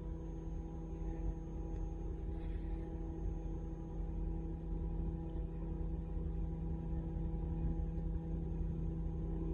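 A steady, unchanging low hum with several higher overtones.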